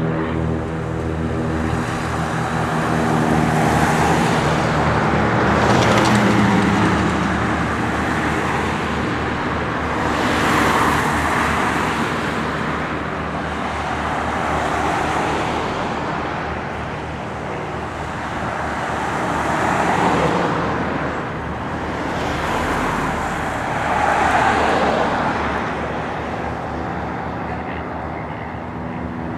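Light propeller aircraft engines heard one after another as the planes depart. An engine drone is clearest for the first few seconds, then a rushing sound swells and fades about six times as aircraft go by.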